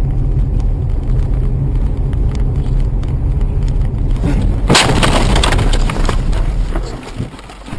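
Car interior road and engine rumble from a dashcam, then a sudden loud collision impact about halfway through, its noisy tail dying away over about a second.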